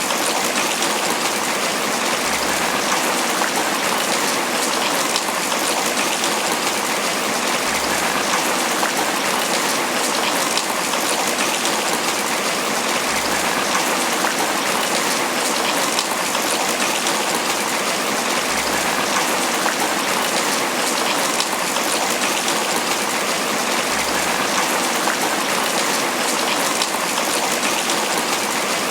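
Tropical rain falling steadily on banana leaves, a dense, even patter of drops.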